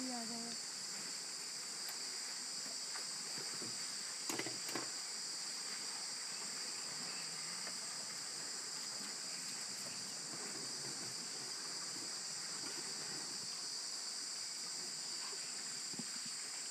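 Steady high-pitched insect chorus, a continuous drone in two pitches. A couple of brief knocks sound about four seconds in.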